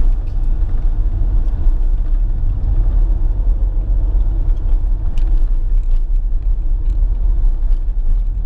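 Steady low rumble of a car's engine and tyres heard from inside the cabin while driving, with a faint steady hum over it.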